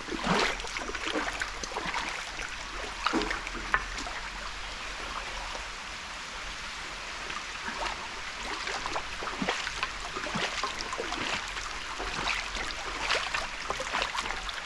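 Water running out of bamboo pipes, splashing and trickling steadily with small irregular splashes.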